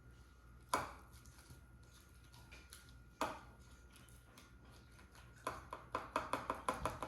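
Two sharp knocks, then, from about five and a half seconds in, a quick run of light taps, about six a second. These are slime-making tools and containers knocking while glitter is added and the slime is mixed.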